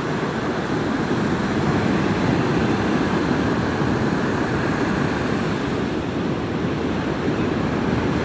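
Ocean surf breaking and washing up the beach, a steady rush, with wind rumbling on the microphone.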